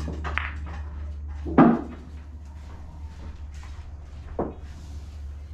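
Pool balls being handled and set down on the table: a loud knock about one and a half seconds in and a lighter knock near the end, over a steady low hum.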